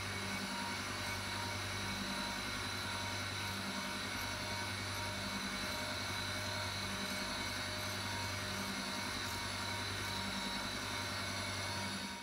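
Surface grinder running on a spark-out pass, its newly balanced wheel barely cutting: a steady machine hum with a low tone that swells and fades about every one and a half seconds. The sound cuts off suddenly at the very end.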